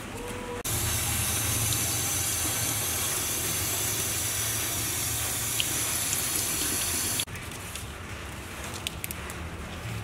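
Tap water running into a stainless steel kitchen sink while leaves are rinsed under it. It starts suddenly about half a second in and cuts off suddenly about seven seconds in.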